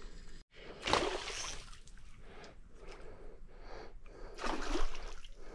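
A hooked peacock bass splashing at the water's surface close to the bank, mixed with the angler's gasping breaths. The loudest bursts come about a second in and again near the end.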